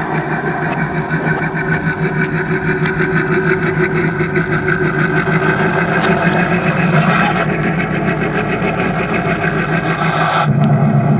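Engine of a miniature diesel-outline locomotive running steadily as the locomotive moves slowly along the track. About ten seconds in the sound turns deeper and heavier.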